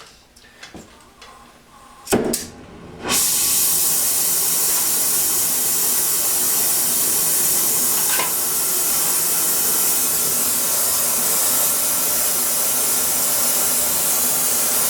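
Gas heating torch being lit with a sharp pop about two seconds in, then burning with a loud, steady hiss as it preheats the steel shaft before welding.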